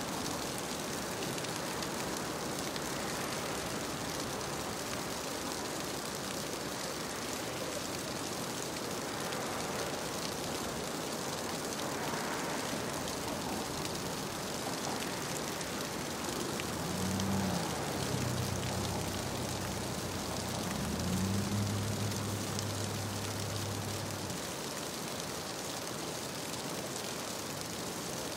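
Steady rush of a rocky mountain stream spilling over a small cascade. From about 17 to 24 seconds in, a passing vehicle's engine hums over it, rising in pitch twice and louder than the water.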